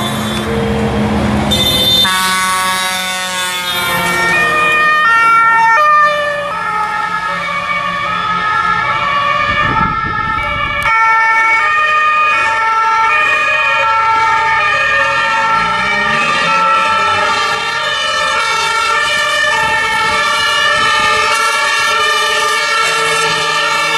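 Several German two-tone emergency sirens (Martinshorn) sounding together, their alternating high and low notes overlapping out of step, over road traffic noise. The mix changes abruptly a few times.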